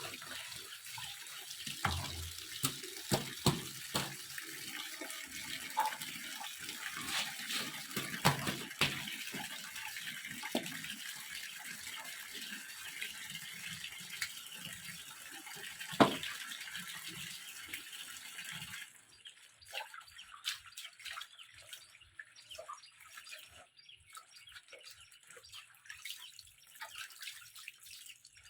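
Water running from a tap, with scattered knocks and clatters; the flow stops about two-thirds of the way through, leaving only small clicks.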